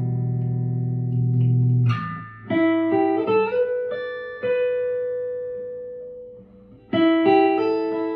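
1958 Guild Aristocrat hollow-body electric guitar being played. A low chord rings and is stopped about two seconds in, then a short run of picked notes follows, one note is held and fades, and a new chord is struck near the end.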